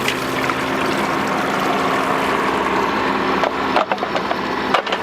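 Bobcat mini excavator's engine running steadily while the bucket works the dirt in the trench, with a few sharp knocks in the last second and a half.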